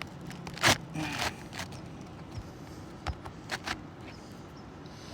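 Sharp taps, knocks and scraping of a roof shingle being worked back into place, with one louder knock a little under a second in and a few smaller clicks later.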